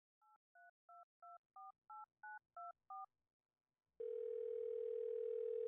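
Telephone keypad dialling: nine short two-note touch-tone beeps, about three a second, each louder than the last. After a pause of about a second, a steady telephone tone starts, with a faint hum under it.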